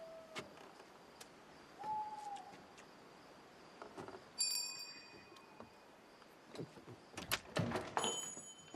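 An owl hoots, one clear call about two seconds in, over a quiet night background. Near the end comes a quick run of knocks on a wooden door.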